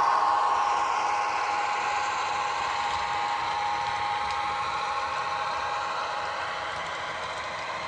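HO-scale model train running past, the diesel locomotive's steady drone mixed with the cars' wheels rattling over the track, slowly fading as it moves away.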